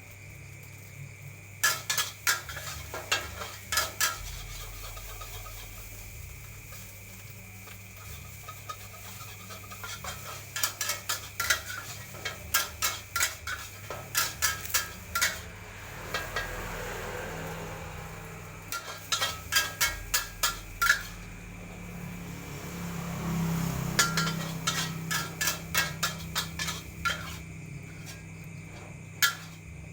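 Metal spatula clanking and scraping rapidly against a wok in bursts of strokes, with sizzling in between as food is stir-fried over charcoal.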